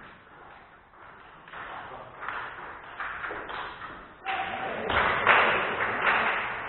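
Table tennis rally: the celluloid ball knocking off the rackets and bouncing on the table in quick alternation, about two hits a second, louder from about four seconds in.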